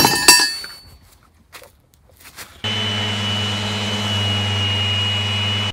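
A sharp clatter that rings briefly, then about two and a half seconds in an electric sander with a vacuum dust-extraction hose comes in abruptly, running steadily against the boat's hull with a high whine on top of its hum.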